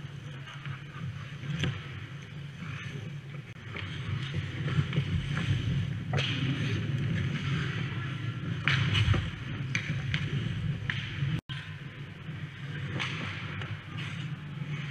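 Ice hockey rink sounds close to the goal: ice skates scraping and cutting on the ice, with occasional sharp knocks over a steady low rumble. The sound cuts out completely for a moment about two-thirds of the way through.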